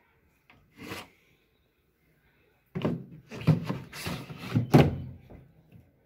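Plastic knocks and clunks as the lower front access panel of a Whirlpool tumble dryer is handled and opened: one light knock about a second in, then a quick run of several knocks and clunks from about three seconds in.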